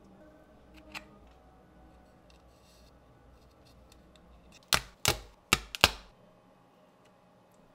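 Thin laser-cut plywood parts being pressed out of their sheet, the small holding tabs breaking with sharp cracks: a faint click about a second in, then a quick run of about five loud snaps past the middle.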